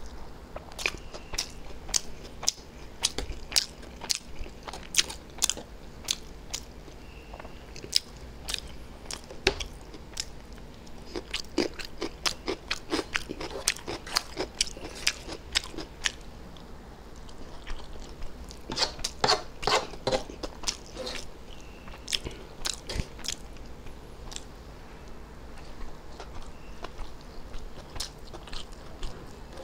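Close-miked chewing of egg chow mein noodles, with frequent sharp clicks from the eating, thickest about two-thirds of the way through.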